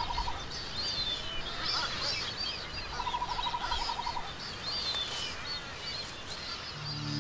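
Wild birds chirping steadily in many short, high calls, with a quick rattling call twice. Music comes in near the end.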